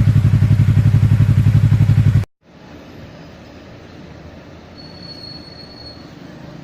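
Yamaha R3's parallel-twin engine idling through an Akrapovic exhaust with a steady, even pulsing, cutting off abruptly about two seconds in. After a brief silence comes a much quieter, steady noisy background with a faint high whine for about a second.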